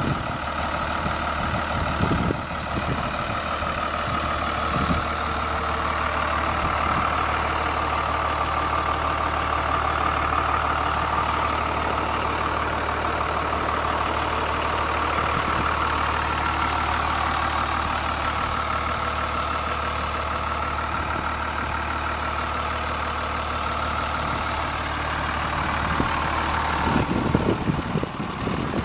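1999 Blue Bird TC2000 front-engine school bus engine idling steadily, with a few thumps near the end.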